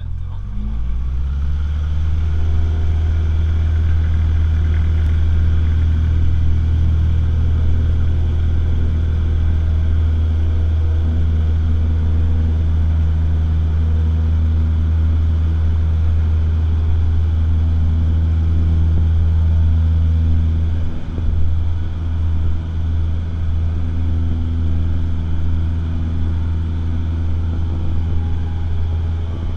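Cessna 172SP's four-cylinder Lycoming engine and propeller, heard from inside the cabin, rising to full takeoff power in the first couple of seconds and then holding a loud, steady drone through the takeoff roll and climb-out. The sound changes about two-thirds of the way through as the plane lifts off the runway.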